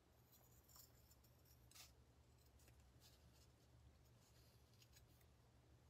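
Faint snips of scissors trimming around an embroidered bottle band and its backing: a few separate cuts, the clearest about two seconds in, over a low steady hum.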